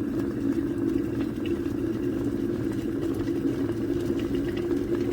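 Aigostar Adam 30GOM glass electric kettle at a full rolling boil: steady rumbling and bubbling of the water, with no change in the sound.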